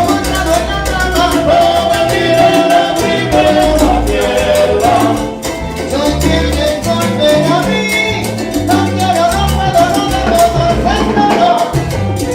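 Salsa band playing an instrumental passage: a pulsing bass line under held melodic lines, with steady Latin percussion driving the rhythm.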